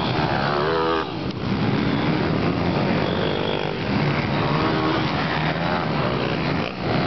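Pit bike engines revving hard as the small motorcycles ride the dirt track, pitch rising and dropping back several times as the riders open and close the throttle and change gear.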